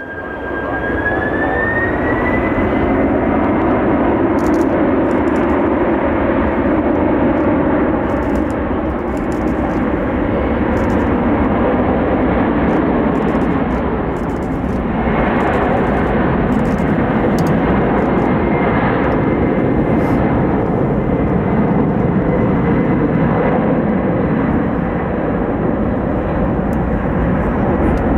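Heavy wide-body cargo jet's engines at takeoff thrust: a loud, steady jet roar, with a high engine whine that rises in pitch over the first couple of seconds and then holds.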